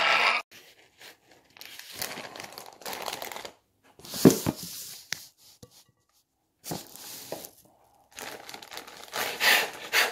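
Food packaging crinkling and tearing in irregular bursts with short pauses between, and one louder thump about four seconds in.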